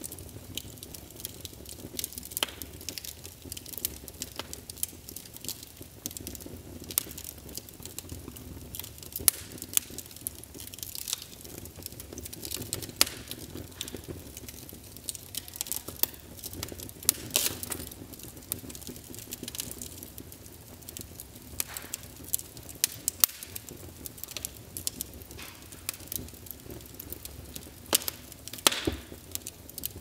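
Crackling fire: irregular sharp pops and snaps over a steady low rush.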